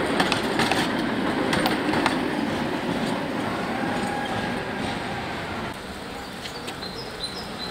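A Tatra T3 tram running past on street rails, a rumble with a run of sharp wheel clicks over the first two seconds or so, fading away about halfway through. After that the street background is quieter, with a few high chirps near the end.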